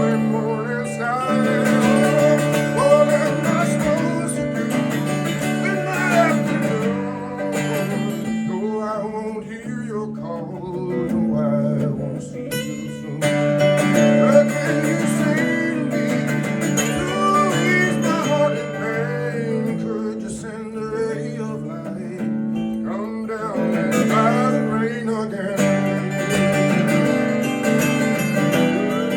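Acoustic string band playing a country/bluegrass tune: strummed acoustic guitar under a lead melody whose notes bend and slide.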